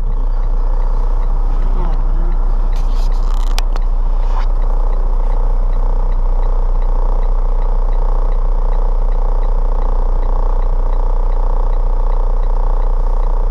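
Steady vehicle hum with a strong low drone, heard from inside the recording vehicle's cabin, broken by a short burst of clattering about three seconds in and a single knock about a second later.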